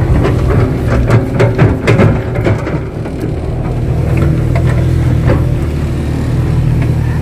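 Kato crawler excavator's diesel engine running under load while the bucket digs hard soil, with a run of clanks and knocks over the first three seconds, then the engine working steadily.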